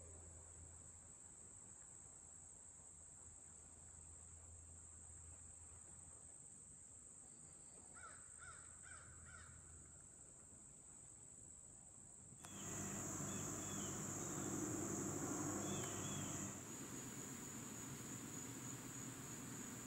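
A crow calling a short run of four or five caws about eight seconds in, over a steady high-pitched drone of crickets. About twelve seconds in the background turns suddenly louder and hissier for a few seconds, with a few faint high chirps.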